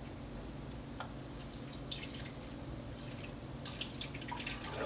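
Milk pouring from a plastic jug into a plastic blender jar full of ice cream scoops, in soft, irregular splashes and trickles starting about a second in.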